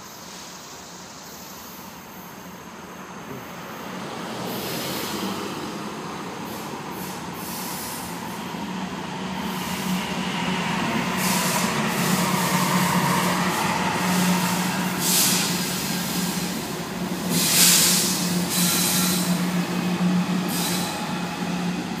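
Norfolk Southern diesel freight locomotives (a GE ES40DC leading) crossing a bridge overhead: a steady engine drone builds as they approach and pass, with sharp bursts of high-pitched wheel and rail noise, the loudest about eighteen seconds in.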